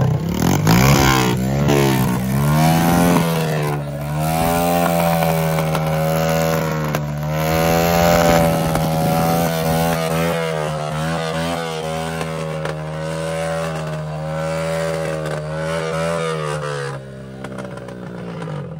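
Car engine revved up and down a few times, then held at high, steady revs for a long stretch, its pitch swaying gently up and down, before easing off near the end.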